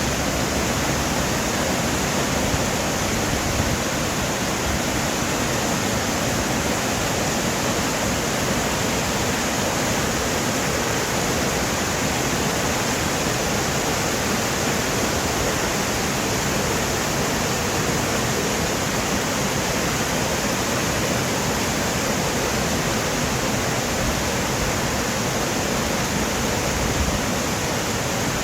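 Mountain valley stream rushing steadily.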